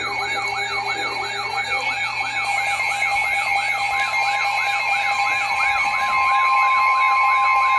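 Electronic emergency alert siren tones: a fast rising-and-falling yelp sweep repeating about three times a second, over steady high tones. About four seconds in, a steady single tone near 1 kHz joins.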